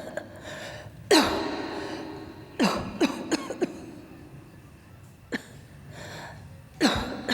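A sick woman coughing in fits: one hard cough about a second in, a quick run of four coughs around three seconds in, and two more later, each cough trailing off in a falling, strained voice.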